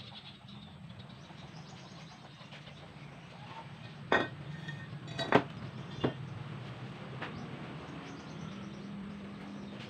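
Hand work on metal parts: three sharp clinks about four, five and six seconds in, and a fainter one a second later, over faint bird chirping and a low steady hum.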